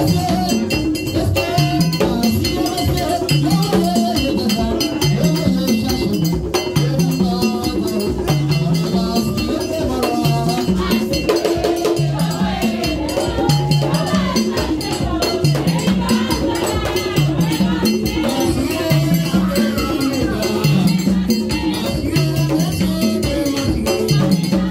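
Haitian Vodou ceremonial music: steady drumming and percussion with a metal bell beat and rattle, under women's voices singing a chant.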